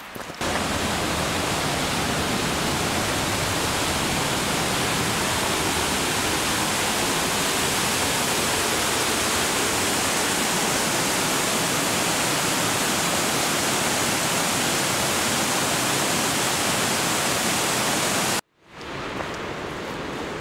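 Waterfall pouring, a loud, steady, even rush of water that starts abruptly about half a second in and cuts off suddenly near the end.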